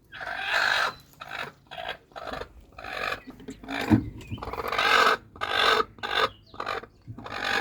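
Rustling and scratching in a chicken nesting box lined with shredded brown paper bags, the bedding disturbed in a run of short irregular bursts, with a single knock about four seconds in.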